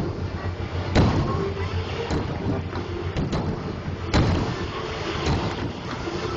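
Fireworks shells bursting: sharp bangs, the loudest about a second in and again about four seconds in, with smaller pops between, over a steady background rumble.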